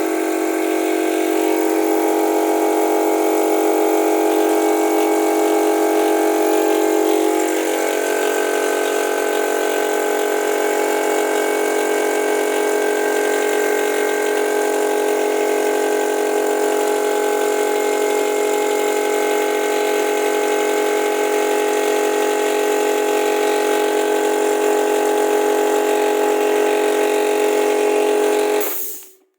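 Air compressor and its compressed-air vacuum gun attachment running: a steady mechanical drone over a loud rushing hiss of air. The tone shifts about seven seconds in, and the sound cuts off suddenly near the end.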